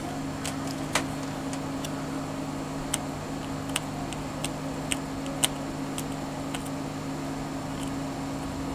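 Soldering iron working on a car alarm's circuit board: a scattering of light, sharp ticks as the iron and tools touch the board, over a steady low hum.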